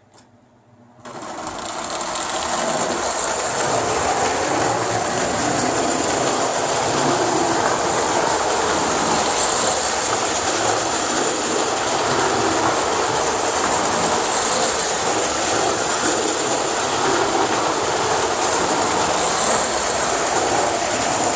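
Restored Marx Commodore Vanderbilt tinplate electric toy locomotive starting up about a second in and then running steadily around a small oval of track, its motor and wheels making an even, continuous noise.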